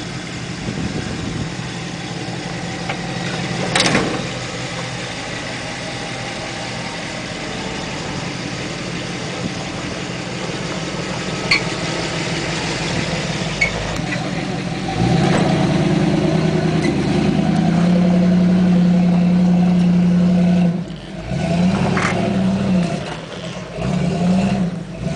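A 1974 Jeep Cherokee's carbureted AMC 401 V8 running slowly at low revs as it crawls over dirt. About fifteen seconds in, it revs up and holds a steady higher, louder pitch for around five seconds. Near the end it is revved up and down several times.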